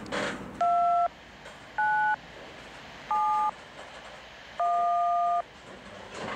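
Four touch-tone (DTMF) dialing beeps, each a two-note tone, spaced about a second apart with the last held longest, over the low rumble of freight cars.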